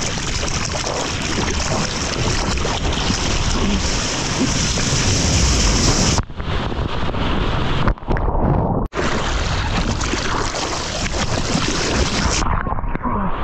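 Steady rush of ocean surf with wind buffeting the microphone. The sound cuts out briefly a few times, about six, eight and nine seconds in.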